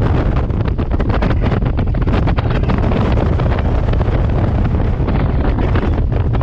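Speedboat water taxi under way: a steady low engine drone with rushing wind on the microphone and frequent irregular knocks of the hull and spray, heard from inside the cabin.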